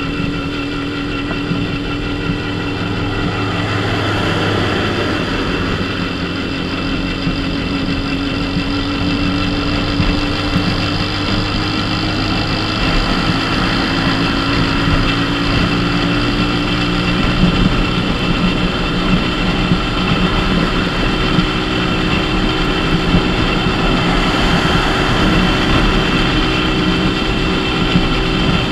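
Dafra Super 50cc motorcycle engine running steadily at cruising speed, its pitch creeping slowly upward through the first part, over a steady rush of wind and road noise.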